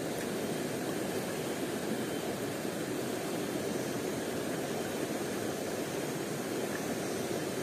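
Steady rush of flowing stream water, an even noise that does not change.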